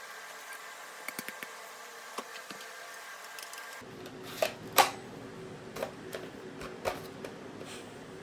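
Mechanical clicks and clacks of an airsoft L96A1 bolt-action sniper rifle being handled. A few light clicks come about a second in. From about four seconds in there are several sharper clacks, the loudest near five seconds in.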